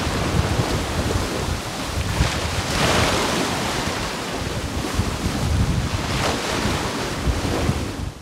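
Wind buffeting the microphone over the rush of waves around a sailing yacht under way at sea, a dense gusty noise with a heavy low rumble.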